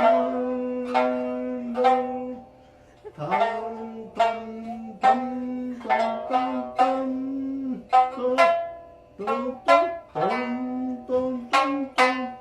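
Background music: a melody of short, sharply struck notes that fade quickly, some sliding in pitch.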